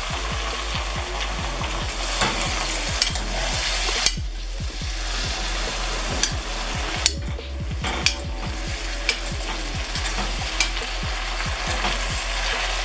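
Potatoes frying in oil in a small cauldron: a steady sizzle with dense crackling, and a few sharp clicks scattered through it.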